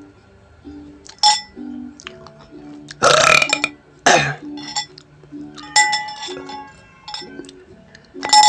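A loud burp about three seconds in, followed by a shorter one, over background music. A fork clinks against the plate three times.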